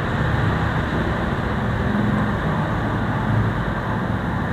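Steady background rumble of road traffic, with no distinct events.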